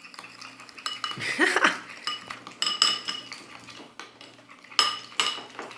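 A utensil stirring slime mixture in a bowl, clinking against the sides in a string of irregular knocks, each with a short ring, with a brief squeak about a second and a half in.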